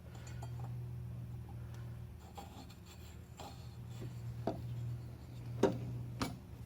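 Light scraping and rubbing of hand tools against engine parts, with three sharp metallic clinks in the second half, the loudest a little past the middle, over a steady low hum.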